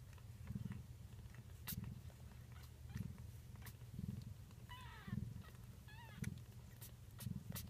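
Ragdoll cat purring steadily, the low rumble swelling about once a second with each breath. Two faint, short high squeaks come about two-thirds of the way through.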